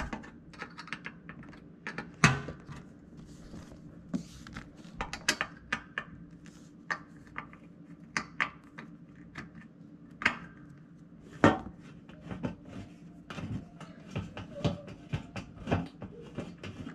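Irregular metallic clicks and taps of a screwdriver working the small screws that hold a KitchenAid dishwasher's bottom panel, with a faint steady hum behind.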